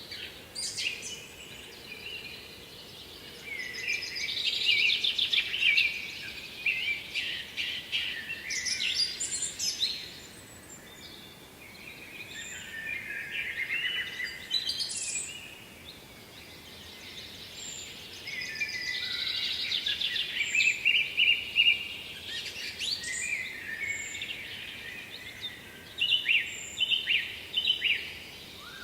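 Songbirds singing: phrases of rapid chirps and trills, several seconds long, that come one after another with short pauses between them.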